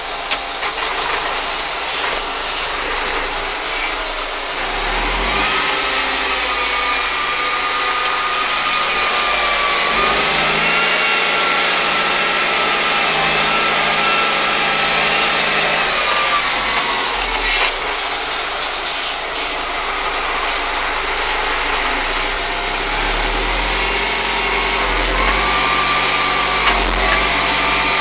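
Deutz-Fahr M410 tractor running on the move, heard from inside the cab. A whine rises with engine speed about five seconds in, falls back around sixteen seconds, and rises again after about twenty-three seconds, with a few light rattles.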